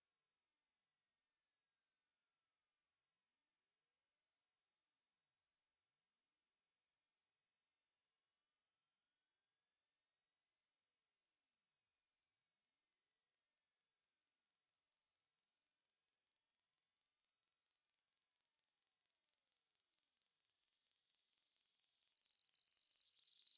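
Pure sine test tone from a hearing test, sliding slowly downward in small steps from a very high, barely audible pitch to a high whistle.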